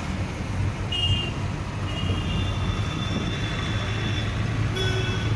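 Inside a car moving in dense city traffic: a steady low engine and road rumble, with vehicle horns sounding, briefly about a second in, held from about two to four seconds, and again near the end.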